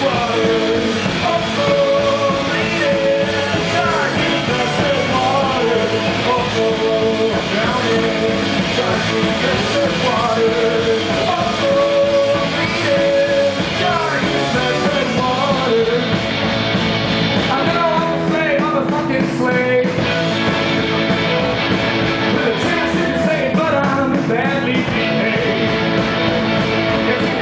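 Rock band playing live: a man singing over electric guitars, bass and drums.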